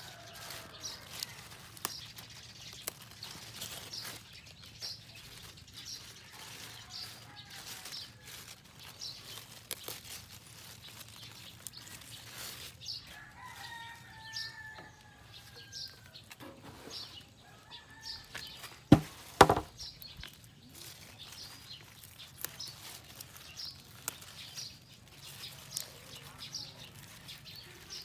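Red leaf lettuce leaves being picked by hand: soft rustling and small snaps, with repeated faint high ticks. A bird calls in a short series sliding down in pitch near the middle, and two loud knocks come close together about two-thirds through.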